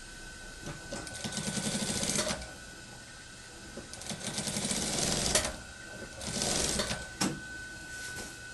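Industrial lockstitch sewing machine stitching a seam in a cotton dress shirt in three short runs of rapid stitching, the last one shorter, then a sharp click. A steady high whine runs underneath throughout.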